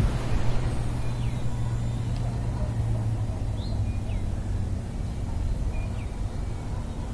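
Gusty wind buffeting the microphone: a steady low rumble that eases a little partway through, with a few short high chirps.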